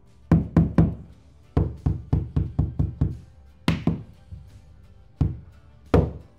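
Engineered-wood chevron floor plank being knocked into place: about a dozen sharp knocks in short quick runs with pauses between, each with a brief low ring, the loudest nearly four seconds in.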